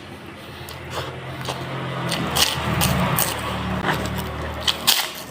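Sharp, irregular crunches and clicks of someone eating kerupuk crackers with tempeh, over a steady low hum that swells and fades.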